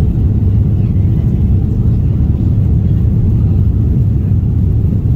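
Steady low rumble of an Airbus A330-303's engines and airflow, heard from inside the economy cabin during departure, even and unchanging.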